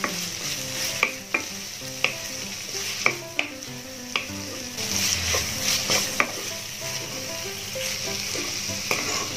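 Wooden spatula stirring a sizzling sauté of onion, carrot and chicken in a steel pan: a steady hiss of frying with irregular knocks and scrapes of the spatula against the pan.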